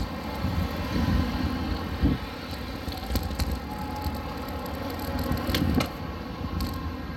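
Wind rumbling and buffeting on a smartphone microphone while riding a bicycle through street traffic, with a few sharp clicks.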